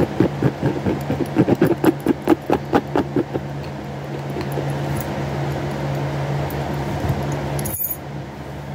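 Loose glitter being tapped and shaken into a small plastic container: a quick, even rattling of about four or five strokes a second that stops about three seconds in. After it, only the steady hum of a room fan.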